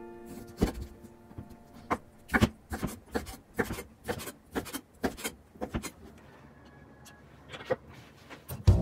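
Chef's knife chopping through a block of bacon onto a wooden cutting board: a quick series of sharp knocks, about three a second, that stops about six seconds in.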